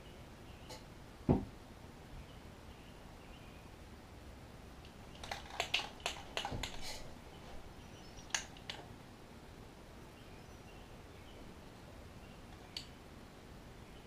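Handling noise on a work table: one low thump about a second in, then a cluster of light clicks and rustles around the middle, and a couple of single clicks later. No spray-can hiss.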